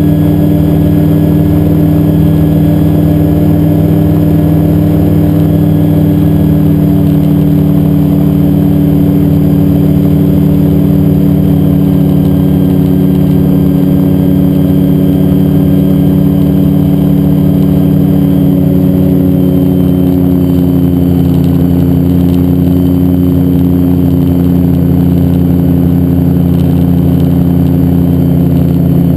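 Xenon IV gyroplane's engine and pusher propeller droning steadily in flight, heard from inside the cockpit. The engine note eases slightly lower over the last third.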